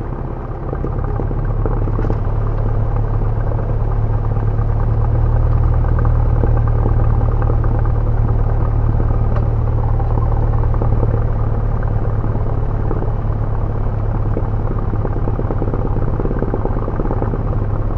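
An aircraft engine running with a steady low drone while the aircraft taxis after landing. It grows louder about a second in.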